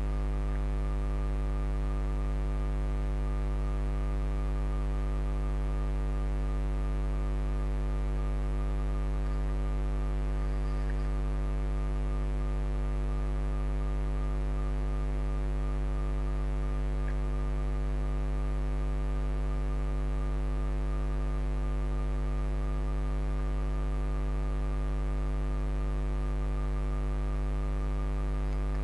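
Steady electrical mains hum: a low, unchanging buzz with many evenly spaced overtones.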